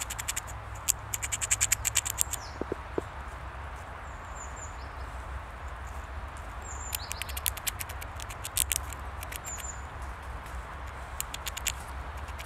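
A Eurasian red squirrel gnawing food held in its paws, its teeth making rapid runs of sharp clicks three times. Short high bird chirps come in between, over a steady low rumble.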